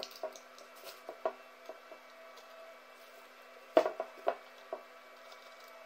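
Scattered small metallic clicks and taps of a hex key and screws as the four hex screws holding a heating circulation pump's housing are worked loose and taken out, with a quick cluster of sharp clicks about four seconds in.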